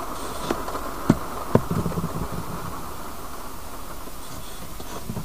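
Light clicks and taps of a small gauge's glass lens and case being handled, three sharp ones within the first two seconds, over a steady faint hiss.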